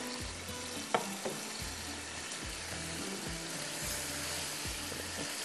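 Soaked rice and masala sizzling in a hot non-stick wok as a silicone spatula stirs them, with a few sharp knocks on the pan in the first second or so.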